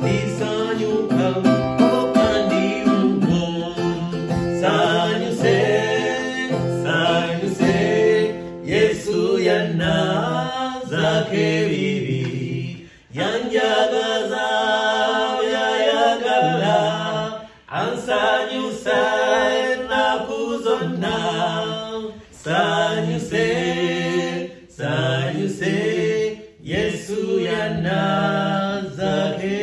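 Two male voices singing a hymn to a strummed acoustic guitar, with short breaks between sung phrases.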